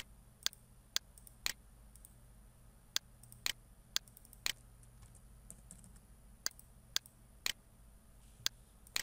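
Computer mouse and keyboard clicks while working in schematic software: about a dozen separate sharp clicks, many of them half a second apart, with a couple of short pauses.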